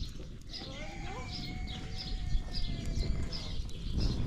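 Small birds chirping over and over, about three chirps a second, with a long held call lasting about three seconds from about a second in, over a steady low rumble.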